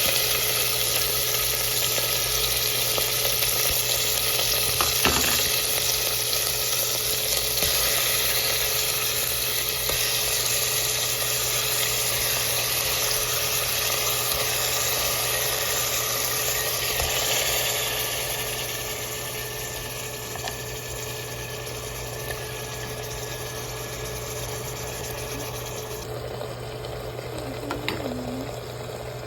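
Pork frying in a pan, sizzling steadily, with a knock about five seconds in and a steady low hum underneath. The sizzle grows quieter about two-thirds of the way through.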